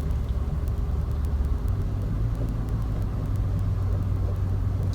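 Steady low drone of a car's engine and tyres heard from inside the moving car, the hum stepping slightly higher a couple of seconds in.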